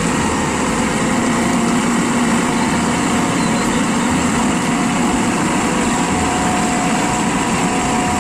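Engine of a light dump truck running steadily while its hydraulic hoist raises the bed and tips out a load of soil.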